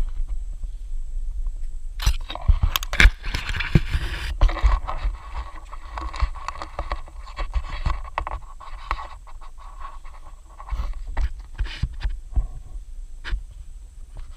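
Camera-handling and rustling noise in rainforest foliage: scrapes and scattered clicks over a low rumble, densest about two to four seconds in, with a faint steady hum running through the middle.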